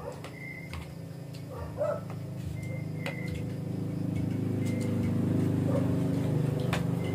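Spoons clinking now and then against plates during a meal, over a steady low hum that grows louder after about two seconds.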